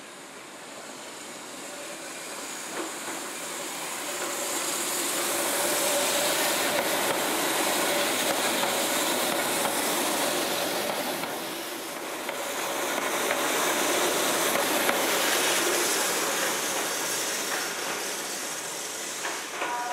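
Keihan 700 series two-car electric train running along street track. Its wheel and running noise swells to a steady rush as it passes close, with occasional clicks from the rails, then rises and fades a second time.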